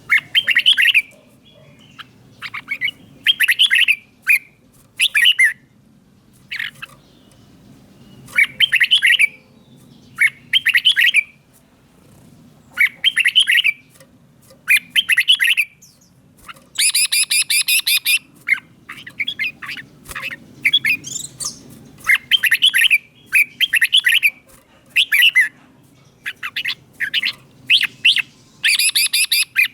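Red-whiskered bulbul singing: short, bright warbled phrases of about a second each, repeated with brief pauses. About seventeen seconds in, and again near the end, come harsher, buzzier phrases.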